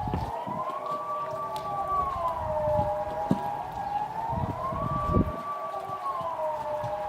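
Kockum Sonics ET 30/3 civil-defence siren sounding the Swiss General Alarm, a wail rising and falling in pitch about once every three and a half seconds.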